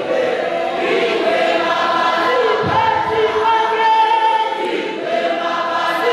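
Gospel song sung by many voices together, led by a woman singing into a microphone, carrying on without a break.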